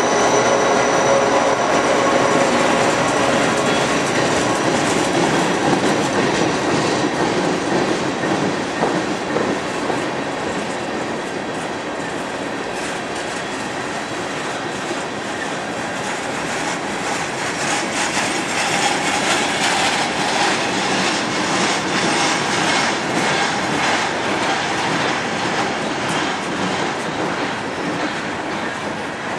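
A freight train rolling past at speed: the trailing GE C40-8W diesel locomotive's engine is heard going by in the first couple of seconds, then a string of tank cars follows with a steady rumble and clickety-clack of wheels over rail joints.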